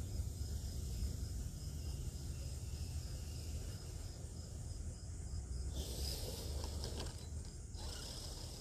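Faint whir of a radio-controlled mud truck driving over grass, over a steady low wind rumble on the microphone. A louder rushing stretch comes about six seconds in and lasts about two seconds.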